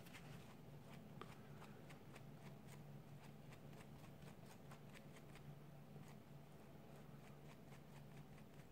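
Near silence: faint, irregular small clicks and scratches of hands working at the smartwatch, over a low steady hum.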